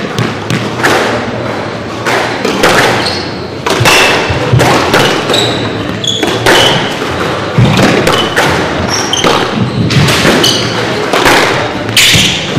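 Squash rally: the ball struck by rackets and smacking off the walls in sharp hits about once a second, with short high squeaks of shoes on the wooden court floor between them.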